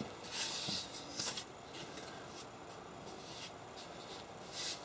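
Faint rubbing and rustling of hands handling the old wooden back panel of a tool chest, with a few short scrapes near the start, about a second in and near the end.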